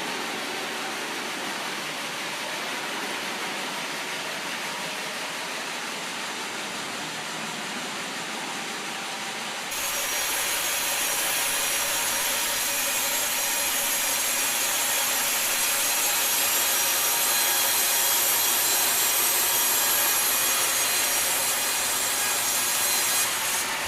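Sawmill blade cutting through a log: a steady sawing noise. About ten seconds in it changes abruptly to a louder, brighter cut.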